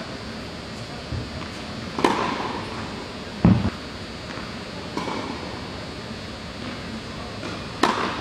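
Tennis racket striking the ball on a serve near the end, a sharp crack with echo in an indoor tennis hall. Before it come a few scattered thuds and pops of balls, about two, three and a half and five seconds in, over a steady hiss.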